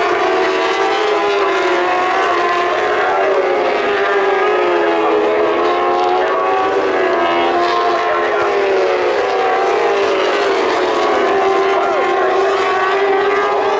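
Several racing motorcycles running at high revs together, their engine notes overlapping and each rising and falling as the bikes accelerate, brake and change gear.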